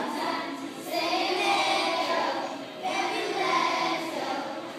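Pop song with a sung vocal playing, its level rising and falling with the phrases.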